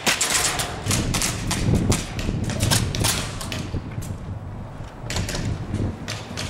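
Airsoft guns firing: irregular sharp clacks and pops, bunched during the first three seconds and again after about five seconds, over a low rumble.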